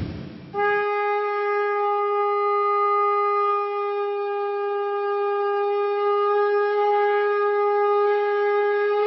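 Conch shell (shankh) blown in one long, steady note, starting just under a second in. A brief rushing noise comes just before it at the start.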